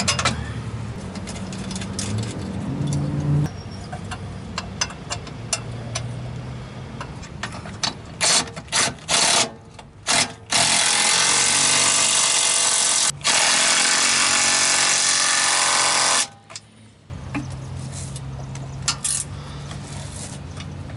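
Power drill boring into a travel trailer's thick steel frame with a DeWalt pilot-point bit, for mounting a stabilizer jack bracket: a few short starts, then a steady run of about six seconds with one brief break. The cut is slow, and the owner says the bit overheated and lost its temper.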